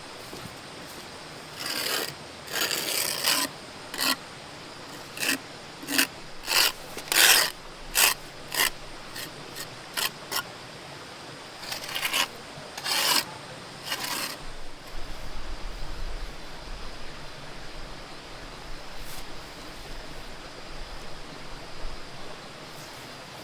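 Wood being worked by hand with a rasping tool: a run of irregular, short scraping strokes, then quieter, softer scraping from about halfway through.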